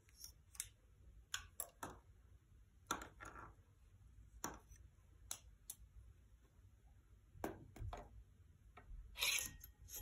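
18 gauge stainless steel wire being wrapped by hand around a thin wooden dowel: faint, irregular ticks and scrapes of wire against wood, with a louder scrape about nine seconds in.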